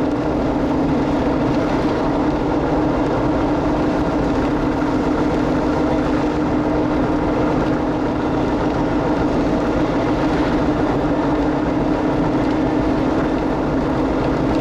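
Steady noise of a moving car heard from inside the cabin: engine, tyres and wind, with one steady low drone.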